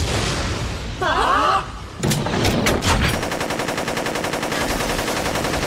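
Anime battle sound effects of rapid automatic gunfire from a giant combat mecha: a few sharp impacts, then a fast, evenly spaced stream of shots through the second half. A short wavering pitched sound comes about a second in.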